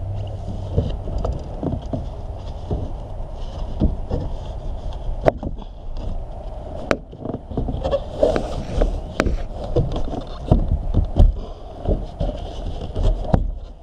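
Plastic interior trim panel of a van being pulled and worked loose by hand: rubbing and scraping with scattered sharp clicks and knocks, and a few heavier thumps in the second half.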